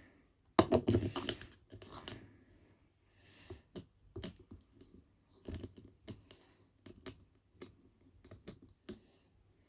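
Irregular clicks and knocks of plastic containers being handled while a school-glue bottle is opened and used, with a louder cluster of knocks about half a second in and scattered taps after.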